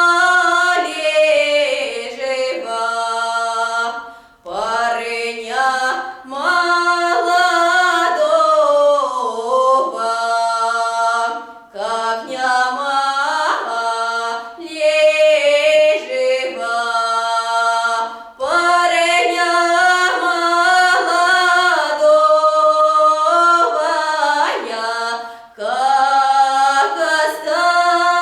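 A woman singing a Nekrasov Cossack lyrical folk ballad unaccompanied, in long drawn-out phrases with short pauses for breath.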